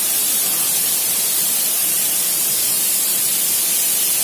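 Steady, loud rush of a waterfall close by, an even hiss of falling water and spray without a break.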